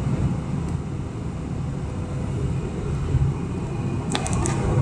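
Steady cabin noise inside a Boeing 747-400 in flight: a low, even roar of engines and airflow. Near the end there is a brief run of light clicks.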